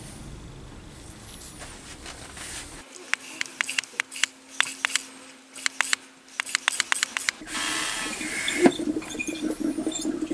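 Fittings and hoses being handled on a car's power steering return line: a quick, irregular run of sharp clicks, then from about halfway through a steady hiss of suction as a vacuum pump draws old power steering fluid and air through its hose.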